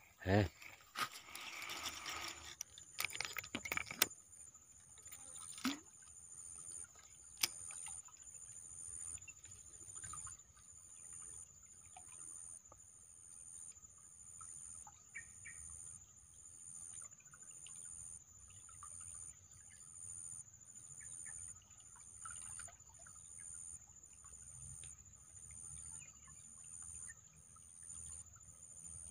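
Insects calling at the waterside: a high chirp repeating about once a second over a steady high-pitched insect drone. A few clicks and rustles come in the first few seconds.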